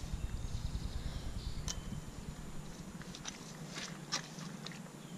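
Scattered sharp clicks and rustles as a just-landed channel catfish is handled and lifted among weeds, with footsteps in the brush. A low wind rumble on the microphone fades about two seconds in.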